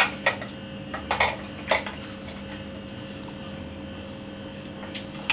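A few short, sharp clicks and rattles of small batteries and a hard plastic case being handled while batteries are fitted into a battery compartment, then a quiet stretch of about three seconds before more clicks near the end.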